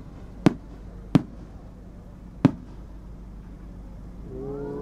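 Aerial firework shells bursting at a distance: three sharp cracks within the first two and a half seconds, unevenly spaced. Near the end a drawn-out, wavering voice-like tone begins.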